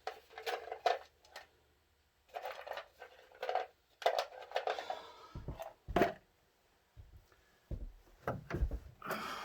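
Scattered clatter and a few sharp knocks of a grille brace being shifted and handled against a pickup truck's hood.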